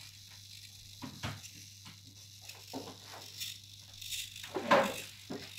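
MeArm robot arm's micro servo motors whirring in short spurts, with small clicks and rattles, as the arm is steered joint by joint; the loudest spurt comes near the end.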